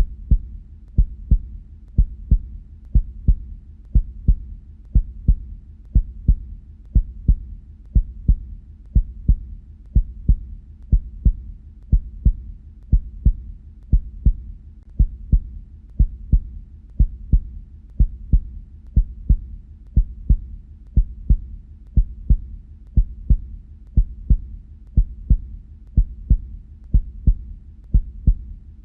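Human heartbeat: low double thumps ('lub-dub') at a steady rate of about one beat a second, the knocking of the heart valves closing.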